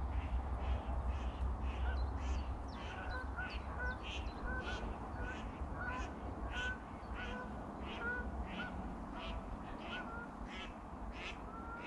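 Birds calling, short calls repeated about twice a second, over a low rumble that eases off about two-thirds of the way through.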